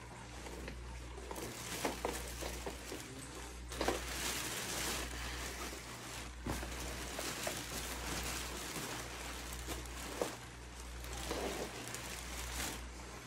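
Thin clear plastic bag and nylon inflatable fabric rustling and crinkling in uneven bursts as they are handled and turned inside out, over a steady low hum.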